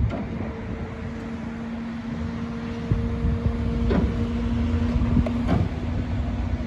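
Crane truck's engine running steadily with a constant hum, with a few short knocks about four and about five and a half seconds in.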